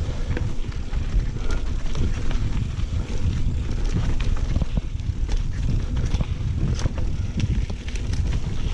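Wind buffeting a mountain biker's action-camera microphone, a steady low rumble, with the scattered clicks and rattles of the bike riding over a rough dirt trail.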